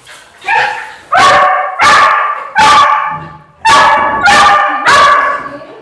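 A dog barking repeatedly: about seven short, loud barks, a little under one a second, with a brief pause midway.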